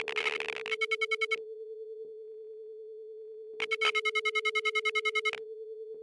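A steady telephone dial tone, overlaid twice by bursts of rapidly pulsing, higher-pitched electronic beeps: once in the first second and a half and again from the middle for almost two seconds.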